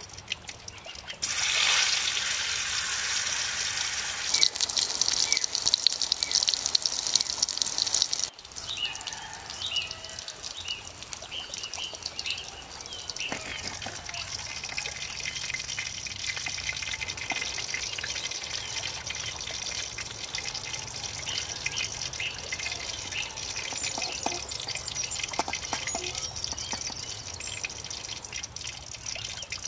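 Food sizzling in hot oil in a small wok. A loud sizzle starts suddenly about a second in as the pieces go into the oil, then eases after about eight seconds to a steady frying sizzle, with a few light clicks.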